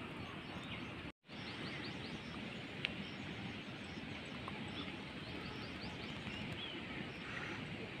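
Outdoor ambience: a steady hiss of background noise with many small birds chirping faintly throughout. The sound cuts out completely for an instant about a second in.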